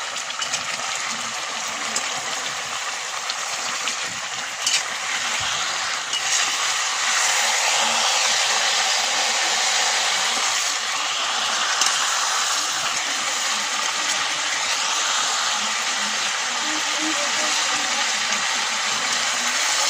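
Whole spiced chicken frying in hot oil in a pan: a steady sizzle, with a few brief clicks and scrapes of the metal spatula turning it.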